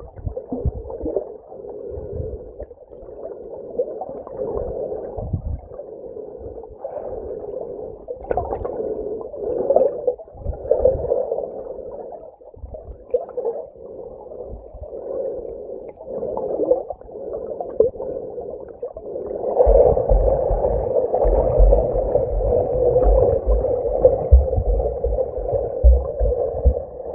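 Muffled underwater water noise picked up by a submerged camera: a steady rushing and gurgling that swells and dips, growing louder with low thumps from about twenty seconds in.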